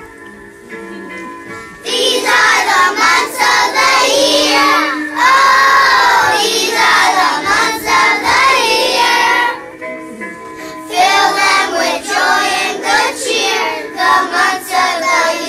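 A group of young children singing a song together along with a musical backing track. The singing starts about two seconds in, pauses briefly about ten seconds in, then goes on.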